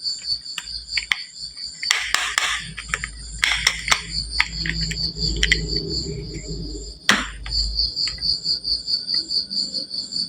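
Marbles clattering and rolling down a wooden marble run, with sharp knocks as they strike the track and a low rolling rumble in the middle, the loudest knock a little after seven seconds. A high, steady, pulsing cricket-like chirp runs underneath.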